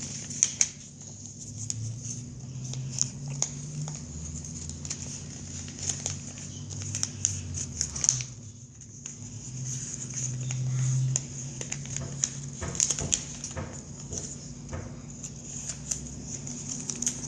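A sheet of paper being handled and folded: scattered light crinkles and small clicks as it is creased, over a steady faint hiss.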